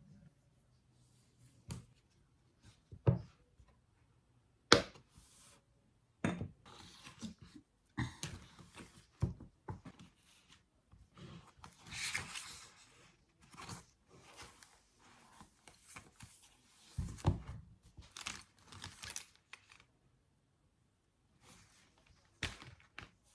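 Objects being handled at close range: a series of sharp knocks and taps, with several bursts of rustling and crinkling, as of paper or packaging.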